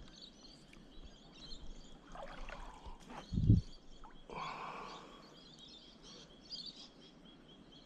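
Quiet outdoor estuary background with faint bird chirps and a steady faint high tone. A single dull low thump about three and a half seconds in is the loudest sound, with brief rushes of noise just before and after it.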